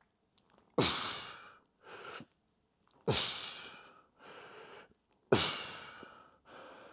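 A man breathing hard through a set of one-arm dumbbell curls. There is a sharp, forceful breath out with each rep, three of them about two seconds apart, and a quieter breath in between each.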